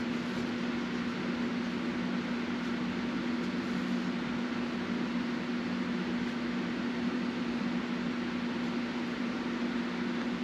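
Steady machine hum over an even hiss, unchanging throughout, with no clicks or strikes standing out.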